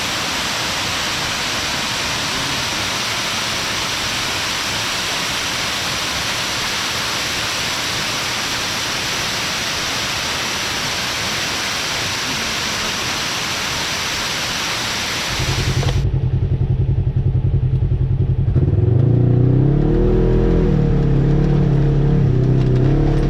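Steady rushing of a waterfall, then about fifteen seconds in a sudden change to an off-road vehicle's engine running and revving, its pitch rising and falling.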